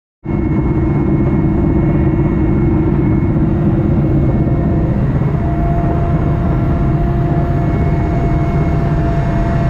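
Helicopter in flight, heard from inside the passenger cabin: a loud, steady drone of engine and rotor with a constant hum. A higher steady whine joins about halfway through.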